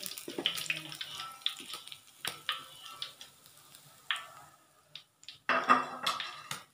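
Metal slotted spatula scraping and knocking against a wok of hot cooking oil as fried fish pieces are lifted out, over a faint sizzle of the oil. The sizzle fades out about halfway through, and a louder scraping clatter comes near the end.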